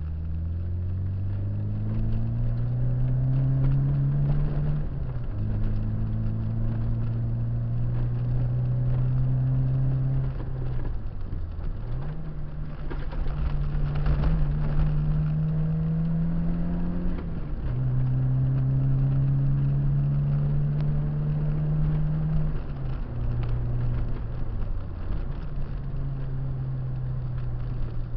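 Peugeot 205 GTI's four-cylinder engine driven hard, heard from inside the car: its pitch climbs steadily through each gear and drops sharply at every upshift, about five times. About eleven seconds in the revs fall much lower and then climb again, with road noise underneath.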